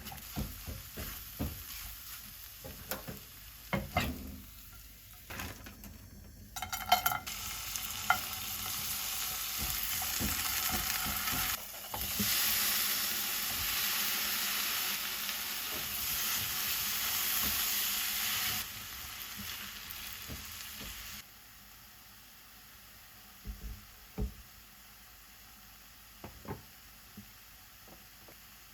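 Food frying in a hot pan: a few clicks and knocks of handling, then a sudden loud sizzle starting about six and a half seconds in. The sizzle drops sharply after about eighteen seconds and stops around twenty-one seconds, leaving only a few faint clicks.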